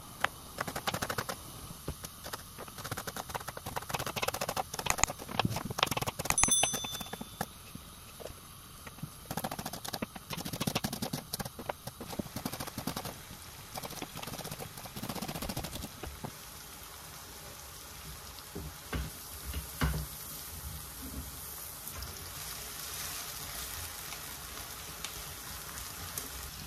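Kitchen knife slicing onions on a wooden chopping board: a long run of quick, sharp taps of the blade hitting the board. In the later part, a steady hiss of sliced onions sizzling in a frying pan.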